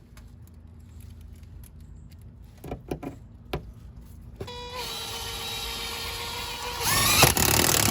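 A few handling knocks, then a cordless drill's motor starts about halfway through and runs at a steady pitch before speeding up and getting louder near the end as it drives a screw through the wood floor into the metal.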